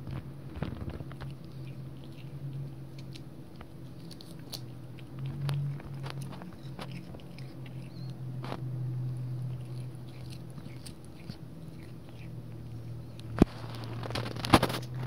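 A cat chewing cat grass: a run of small crunching clicks as she bites and tears off the blades, with a couple of sharper, louder knocks near the end.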